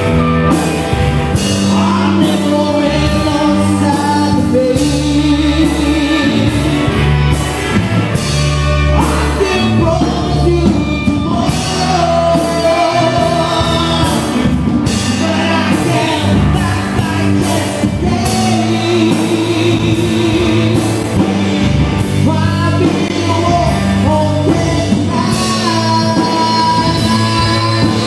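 A live band playing with a lead singer, captured raw on a camera's built-in microphone.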